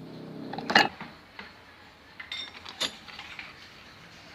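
Metal tools and parts of a car AC compressor clinking together as it is taken apart: one sharp, ringing clink about a second in, then two lighter clinks near the end.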